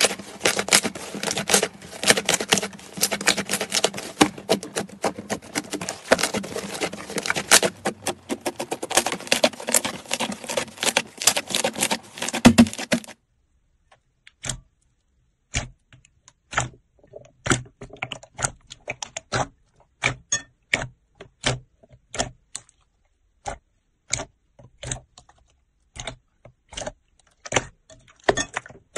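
Hands squeezing and kneading thick slime, a dense run of sticky crackles and clicks. About thirteen seconds in it stops sharply and gives way to separate crisp clicks, one or two a second, as fingers press into glossy slime in a bowl.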